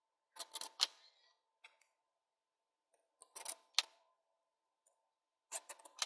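Small metallic clicks and ticks in four short clusters as a hex key works small screws loose and they are handled.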